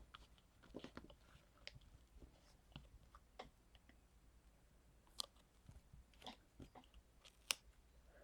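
Faint rustling and small clicks of paper being handled: sticker triangles and their backing being peeled and pressed onto a paper bookmark. There are two sharper clicks, about five seconds in and near the end.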